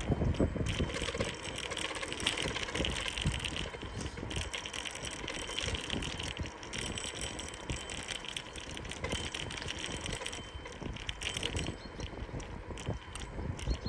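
Bicycle riding on an asphalt street: tyres rolling with a steady noise, and the bike rattling and clicking over small bumps in the road.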